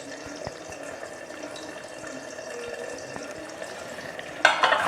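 Thin egg-omelette curry simmering in a pan, a steady bubbling sizzle with a few faint ticks. A louder burst of sound comes near the end.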